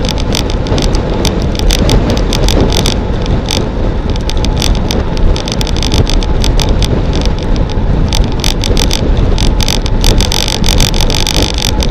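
Wind rushing over a bicycle-mounted camera's microphone on a road bike descending at about 50 km/h. It is loud and steady, with a constant crackle of short clicks and rattles over it.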